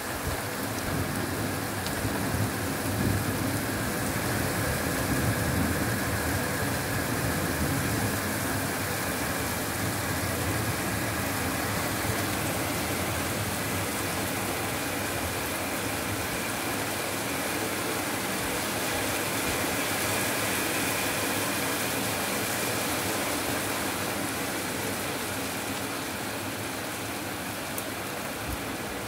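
Steady rain during a thunderstorm, an even rushing noise, with a deeper rumble in the first several seconds that gradually eases.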